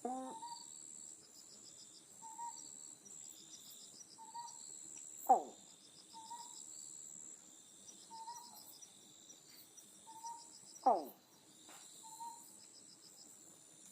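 Otton frog calling twice, each a short, loud call sliding steeply down in pitch, about five and a half seconds apart. Between the calls, short faint notes repeat about every two seconds over a steady, pulsing insect chorus.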